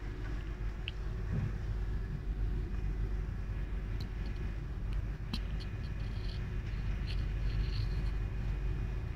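Passenger train running along the line, a steady low rumble heard from inside the carriage, with a few short sharp clicks.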